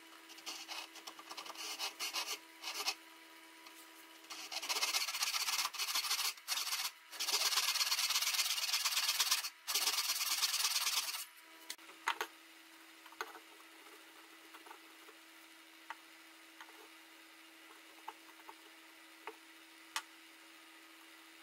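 Hand saw cutting through the end grain of a wooden hammer handle. It starts with short, uneven strokes, then runs long back-and-forth strokes from about four to eleven seconds in, with brief pauses. After that come a few faint clicks and taps.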